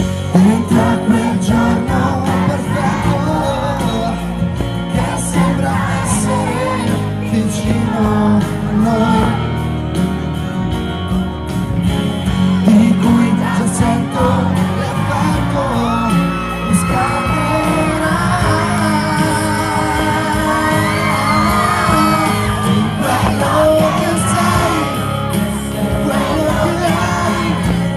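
Live pop concert: a male singer singing through the PA over loud amplified accompaniment, with shouts and whoops from the crowd.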